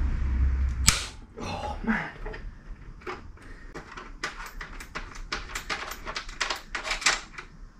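Pannier bracket, bolt and spacers being worked onto a motorcycle's footrest hanger by hand. There is a sharp knock about a second in, then a quick, irregular run of light clicking and tapping as the parts are jiggled into line.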